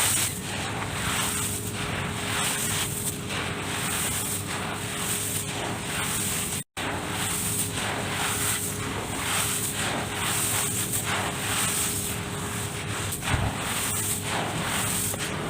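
Hands working crumbly dirt in a tub: repeated gritty rustling and crunching strokes, about one or two a second, over a faint steady hum. The sound cuts out for an instant a little before halfway.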